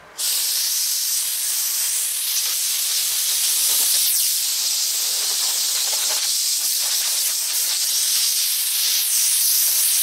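Rain falling, a steady high hiss that starts and stops abruptly.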